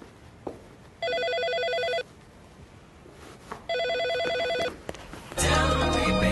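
Telephone ringing twice, each ring a rapid trill about a second long. Music starts near the end.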